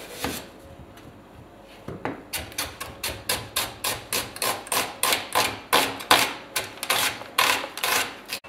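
Chef's knife slicing an onion on a plastic cutting board. One knock comes just after the start, then from about two seconds in a steady run of knife strikes on the board, about three a second.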